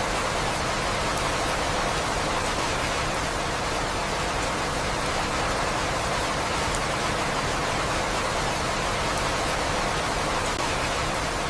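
Steady heavy rain, an even hiss with a few faint drop ticks.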